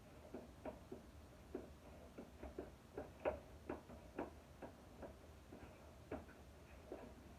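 Grout being stirred by hand in a plastic bucket: faint, irregular light clicks and knocks of the mixing tool against the bucket, about two or three a second.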